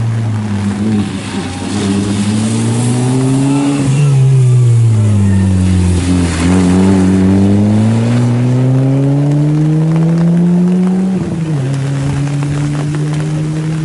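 Peugeot 206 rally car's engine revving hard. Its pitch climbs, drops sharply about four seconds in and keeps falling as the car slows past. It then climbs steadily again to a sudden drop, an upshift, about eleven seconds in.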